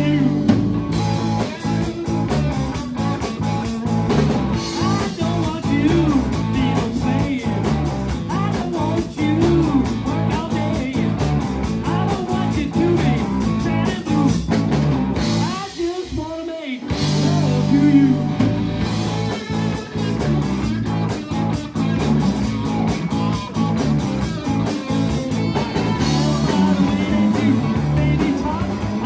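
Live blues-rock band playing an instrumental section: an electric guitar solo with bent notes over electric bass and drum kit. Near the middle the band stops for a moment before coming back in.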